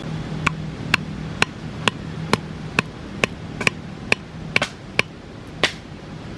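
Knife chopping on a cutting board: about a dozen even strokes, roughly two a second, stopping near the end.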